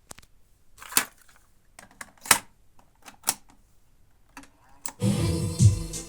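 Sharp mechanical clicks and clunks from a Technics RS-4 cassette deck's controls and mechanism being worked, about six spaced roughly a second apart. Music then starts playing about five seconds in as the tape plays.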